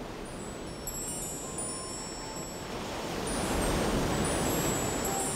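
Ambient background music: a wash of noise like wind or surf that swells towards the middle, with high held tones coming in about a second in.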